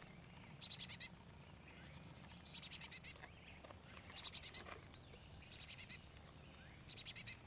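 Black-capped chickadee fledgling calling with its beak open: five short bursts of rapid, high-pitched notes, one about every second and a half, the begging calls of a young bird that cannot yet fly.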